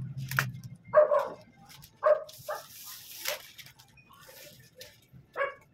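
A dog barking in short single barks, about one a second, with plastic rustling from a courier bag being handled.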